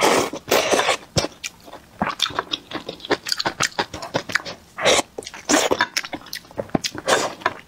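Close-miked eating of pickled cabbage fish soup: a loud breathy slurp as a chopstick-load of pickled greens goes into the mouth, then wet chewing with many short sharp clicks. Two more breathy slurps come about five and seven seconds in.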